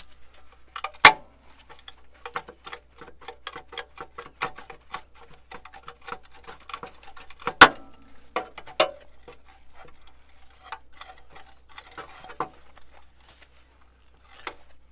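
Steel clicking and clanking as locking pliers grip and work the partly cut lip of a Jeep XJ's steel crossmember: a run of quick, irregular ticks with two sharp metal knocks, one about a second in and one past the middle, thinning out near the end.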